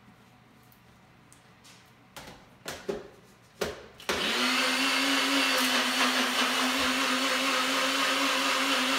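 A few clicks and knocks as the blender cup is seated on its base, then about four seconds in a NutriBullet personal blender's motor starts and runs at a steady pitch, emulsifying kefir with flaxseed oil.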